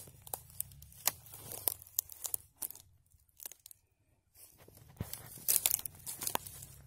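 Footsteps crunching and crackling over dry twigs and forest litter, in irregular crackles. They stop for a moment of near silence about three seconds in, then start again.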